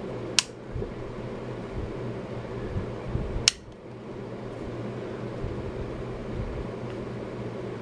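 Two sharp clicks about three seconds apart as the rotary range selector of a UNI-T UT90A digital multimeter is turned, over a steady low hum.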